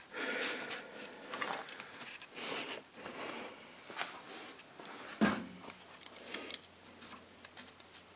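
Rustling and handling noises of someone moving about with a camera and hand tools, with one knock about five seconds in and a few sharp clicks just after.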